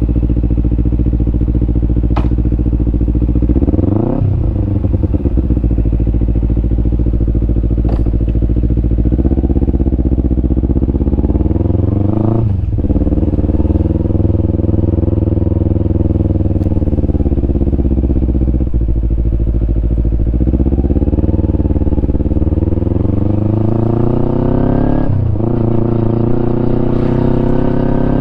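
Kawasaki Ninja 250 parallel-twin engine running through a Yoshimura aftermarket exhaust while ridden. The note climbs and falls with the throttle. Its pitch drops sharply and climbs again about three times, near the start, near the middle and near the end, as with gear changes under acceleration.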